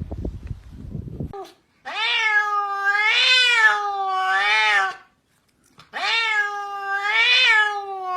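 A domestic cat meowing in two long, drawn-out calls whose pitch wavers up and down, the first starting about two seconds in and lasting about three seconds, the second starting about six seconds in. Before them comes a low rumbling noise.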